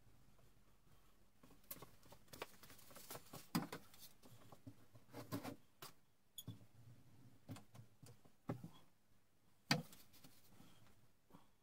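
Faint handling sounds of wooden trim and hand tools on a workbench: scattered light taps and clicks, with one sharper knock just before the end.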